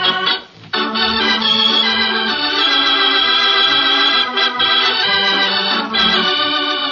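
Organ music playing a bridge of held chords, with a short break about half a second in before the chords resume.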